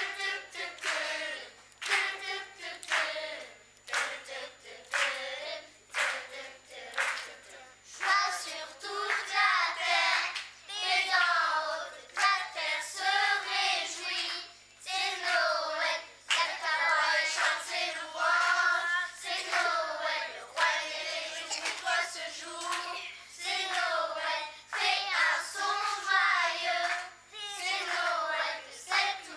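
Children's choir singing, with regular hand claps keeping the beat.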